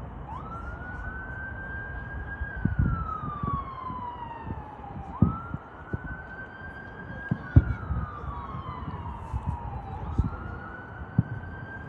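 A siren wailing in slow cycles, each a quick rise in pitch, a short hold, then a long fall, starting over about every five seconds, three times. Fireworks shells bursting give low thuds in between, the loudest about five and seven and a half seconds in.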